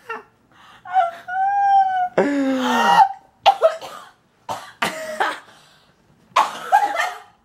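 A young woman coughing and gagging in a series of short bursts, the loudest about two seconds in, with a brief pitched groan between them. It is her reaction to chewing a rotten-egg flavoured jelly bean, as she comes close to vomiting.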